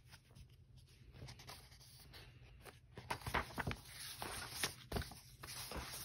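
Paperback picture book's cover being turned by hand: paper rustling with crisp crinkles and clicks, loudest from about three to five seconds in.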